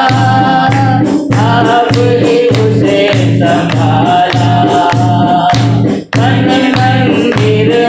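Christian worship song: singing over a steady beat, with a bass note pulsing about twice a second. The music drops out for an instant about six seconds in.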